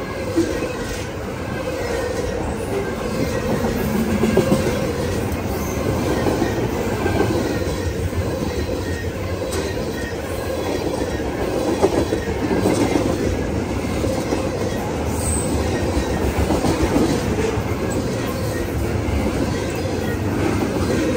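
Freight train rolling steadily past, its cars' steel wheels clacking over rail joints above a constant rumble, with some wheel squeal.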